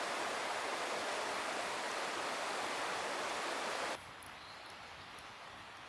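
Steady rushing of flowing water, cut off abruptly about four seconds in, leaving a quieter outdoor hiss with a few faint high chirps.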